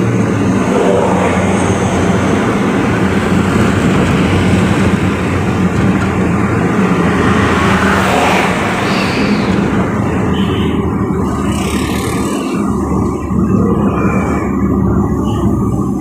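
Engine and road noise of a vehicle being driven, a steady low engine drone that falls off briefly about twelve seconds in.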